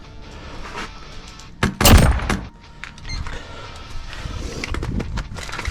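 Background music, broken about one and a half seconds in by a sudden loud burst of noise lasting under a second.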